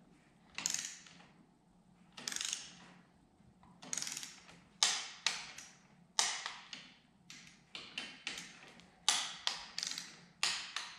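Ratchet of a torque wrench clicking in short runs as it is swung back and forth, driving 4 mm hex bolts down to 10 Nm. The runs come about every second or more at first, then closer together about four seconds in.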